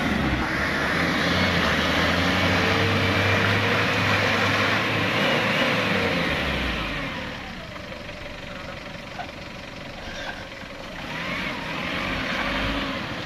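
Ford Ranger pickup's engine revving hard and held at high revs while its tyres spin in deep mud, the truck straining and stuck. About six or seven seconds in the revs drop off, and they rise again briefly near the end.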